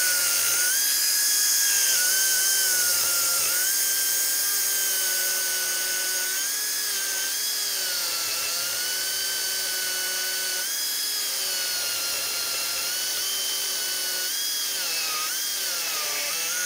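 High-speed die grinder with a carbide burr grinding out the holes of a metal hibachi charcoal grate: a steady high whine with hiss that sags in pitch every few seconds as the burr bites into the metal, then picks back up.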